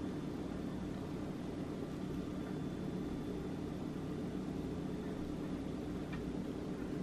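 Steady low machine hum, like a fan or motor running, with a faint thin high whine over it and one small click near the end.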